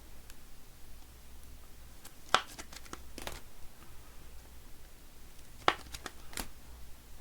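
Trading cards and plastic card cases being handled at a table, with two sharp clicks and a few softer ones among light rustling.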